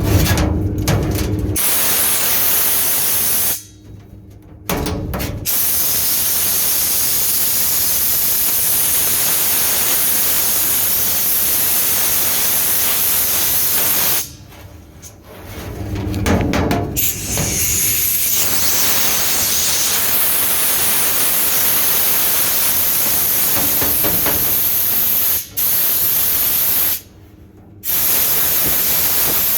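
Loud, steady hiss of rushing air from dryer vent cleaning equipment working in the duct. It cuts off abruptly and starts again several times.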